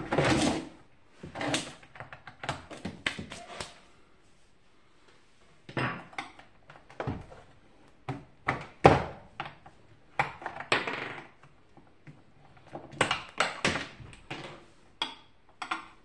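Plastic casing of a box fan being handled, turned and set down on a board: irregular knocks, clacks and short scrapes of hollow plastic parts, the sharpest knock about halfway through.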